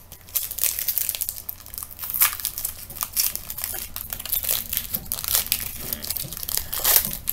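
Plastic wrapper of a pack of trading cards crinkling and crumpling in the hands, a quick irregular run of sharp crackles.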